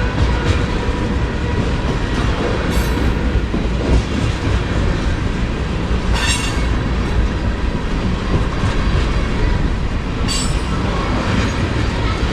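CPKC local freight train's cars rolling past with a steady rumble and clatter of wheels on rail, broken by brief high-pitched metallic squeals three times.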